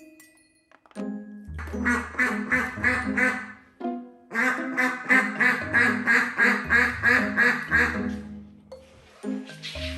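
Background music with two runs of short repeated calls, about four a second, and a shorter run near the end.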